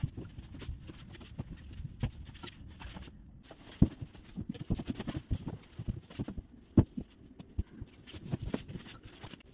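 Bedding being handled: a blanket and bedsheet rustled and smoothed and a pillow set in place, with irregular soft thumps, the two loudest about four and seven seconds in.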